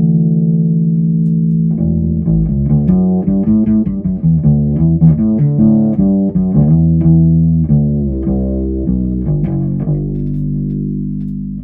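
Ibanez SRH505F fretless five-string bass played solo. One low note rings for about two seconds, then a quick run of plucked notes follows, and it ends on a long note dying away.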